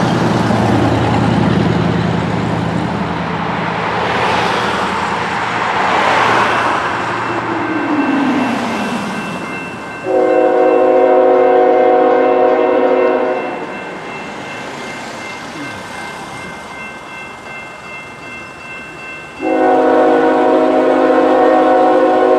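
Road traffic passing, then a railroad grade-crossing warning activating: the GS Type 2 E crossing bells start ringing about ten seconds in, and an approaching train's multi-tone air horn sounds two long blasts, the first about ten seconds in and the second near the end.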